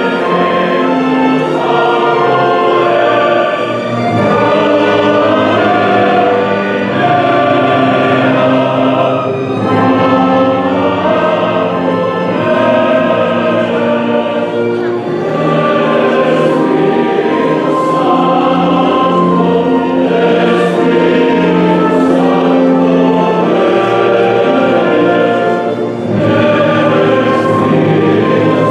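A choir singing with an orchestra: sustained, slow-moving choral music at a steady loud level.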